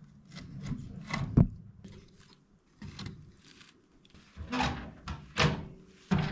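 Irregular knocks and rubbing sounds of things being handled, with one sharp knock a bit over a second in and two louder scrapes near the end.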